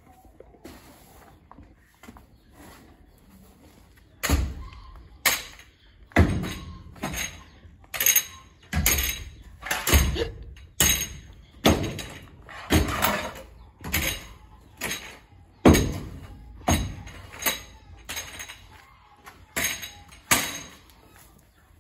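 A shovel blade scraping and knocking along a barn stall floor as soiled goat bedding and manure is scooped up, about one stroke a second, starting a few seconds in.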